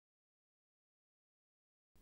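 Silence, with no sound at all; faint low room hum cuts in abruptly at the very end.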